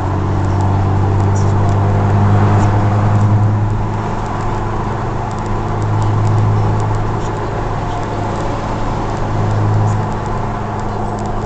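Heard from inside the cabin, a 2006 Honda Accord Euro R (CL7R) with a K20A four-cylinder and J's Racing exhaust runs at a steady engine speed, its low exhaust drone swelling louder three times, about two, six and ten seconds in.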